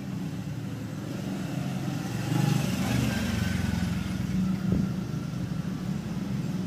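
A motor vehicle's engine running, louder from about two and a half seconds in, with a brief low thud near the five-second mark.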